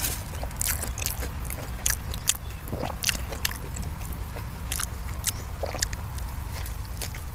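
A person biting and chewing food close to the microphone: irregular sharp clicks and crunches, over a steady low background rumble.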